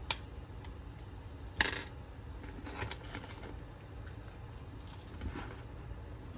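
A sharp click about one and a half seconds in, then scattered lighter taps and rustles: small hard objects being handled and set down on a desk.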